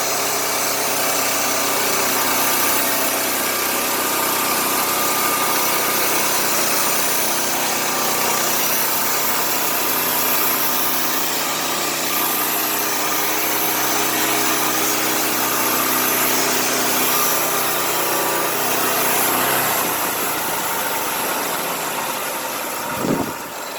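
Sawmill running loudly and steadily as it cuts a board from a log: an engine hum under a broad whirring saw noise. About twenty seconds in, the low engine tone drops away.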